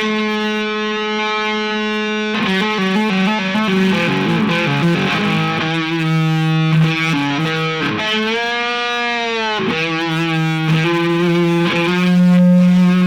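Distorted electric guitar playing lead lines: long sustained single notes with vibrato, a quick run of notes early on, and a note bent up and released about two-thirds of the way through.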